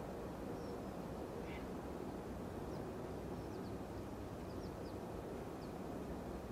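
Steady low outdoor rumble with faint, short, high chirps of small birds scattered through it, and one short lower bird call about a second and a half in.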